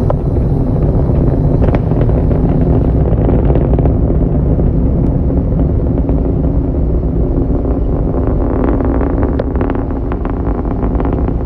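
Rocket launch: a loud, steady low rumble from the rocket engines, with crackling that grows stronger about eight seconds in.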